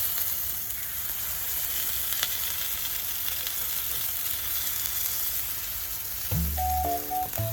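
Takoyaki batter sizzling steadily on a hot griddle plate. There is a small click about two seconds in, and background music comes in near the end.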